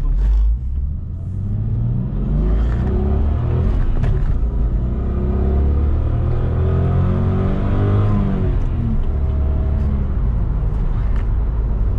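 Toyota Supra's 2JZ-GTE twin-turbo straight-six heard from inside the cabin under acceleration, with road rumble underneath. The engine pitch rises, breaks at a gear change about four seconds in, climbs again, then falls away after about eight seconds.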